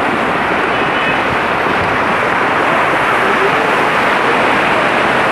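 Muddy flash-flood torrent carrying rocks and debris rushing down a street: a loud, steady rush of water with no let-up.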